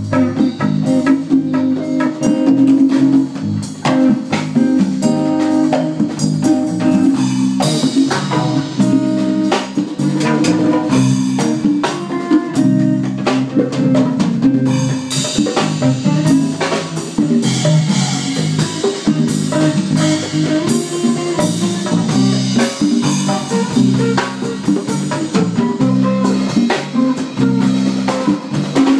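Live band playing a groove: drum kit hits over a steady guitar line.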